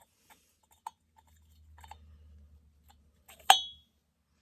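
Small metal chainsaw engine parts being handled on a bench: a few light ticks, then one sharp metallic clink with a brief ring about three and a half seconds in.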